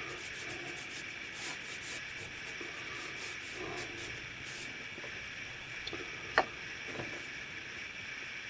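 Faint rubbing and brushing on damp card as a watercolour wash is worked over the planks, with a sharp tap about six and a half seconds in and a smaller one just after.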